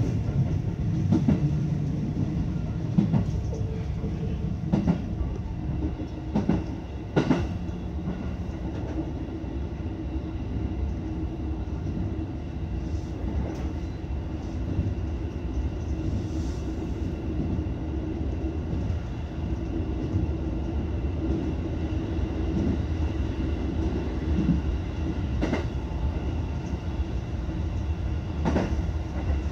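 Electric train running along the track, heard from inside the front cab: a steady rumble of wheels on rail, with a few sharp clacks, several in the first seconds and two more near the end.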